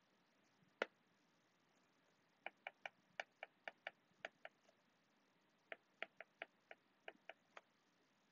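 A hard stylus tip tapping on a tablet's glass screen while handwriting: a single click about a second in, then two runs of quick, light ticks, about four or five a second.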